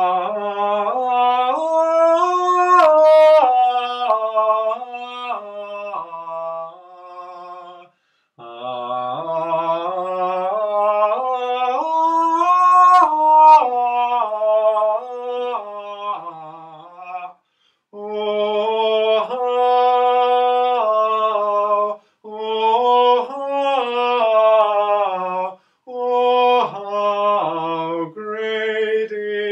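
A man singing an unaccompanied, wordless improvised melody that moves up and down in steps of pitch, in about five phrases with short gaps between them.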